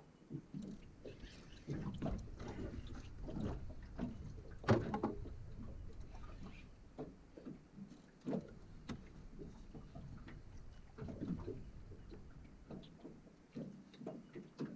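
Irregular knocks, clicks and rattles of fishing gear and hull in a small boat during a fish fight, with wind rumbling on the microphone; the sharpest knock comes about halfway through.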